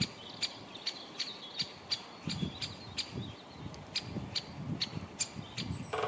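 Great spotted woodpecker giving sharp, short 'kik' notes, two or three a second at irregular spacing.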